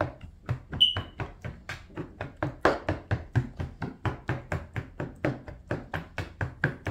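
A metal fork repeatedly stabbing marinated raw chicken breasts in a plastic bowl to tenderize them: a steady run of quick taps, about five a second.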